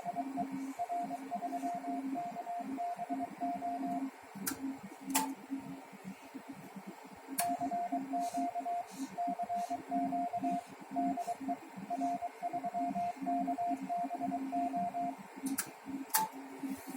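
Morse code (CW) keyed on a transceiver, heard as a pitched sidetone beeping in dots and dashes. It sends in two runs, with a pause of about three seconds in between that holds a few sharp clicks. A steady low hum runs beneath.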